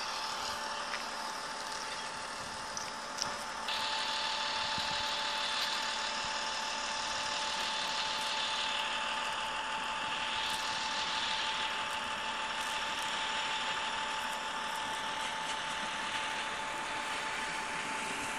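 Electric train in a railway station: a steady high whine over a hiss of running noise, getting louder about four seconds in as the train draws nearer.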